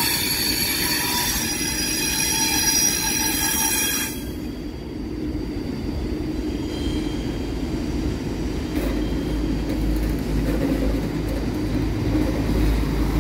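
A Thalys high-speed train rolls slowly past with a set of steady high-pitched whining tones that cut off abruptly about four seconds in. Then a diesel Alstom Coradia LINT railcar draws into the platform, its low engine and running rumble growing toward the end.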